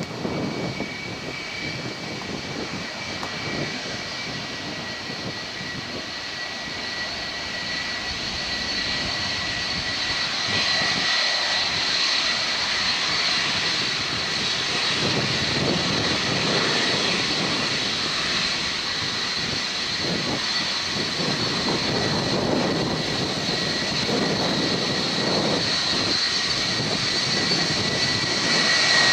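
Boeing 757-200's Rolls-Royce RB211 jet engines running: a broad rush with a steady high-pitched fan whine. It grows louder over roughly the first ten seconds and then holds steady.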